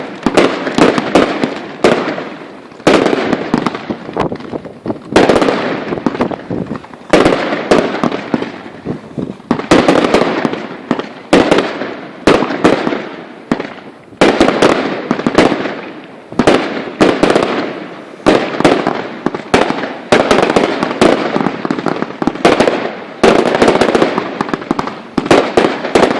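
Consumer fireworks going off in a dense, continuous run of sharp bangs and crackling, with a loud boom about every one to two seconds.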